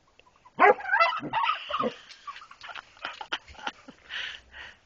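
Turkey tom gobbling: one loud warbling call of about a second and a half, starting about half a second in, followed by softer clicks and short puffs.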